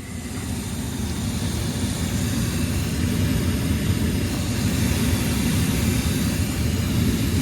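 A Payne furnace's fan motor spinning up over about a second and then running steadily with a rushing whir, as the furnace starts a heating cycle ahead of ignition.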